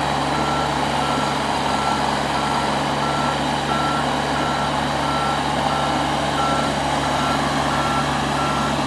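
New Holland LS150 skid steer running, its engine drone steady under the backup alarm beeping evenly about one and a half times a second: the machine is in reverse.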